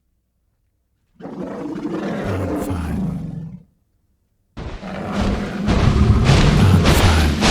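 Dinosaur roar sound effects: a growling roar of about two and a half seconds starting a second in, then after a short pause a second, louder roar with heavy thuds in it.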